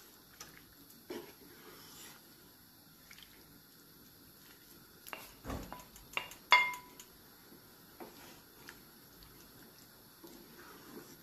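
Kitchen handling sounds: scattered small knocks and clinks of utensils and dishes, with one sharp ringing clink about six and a half seconds in.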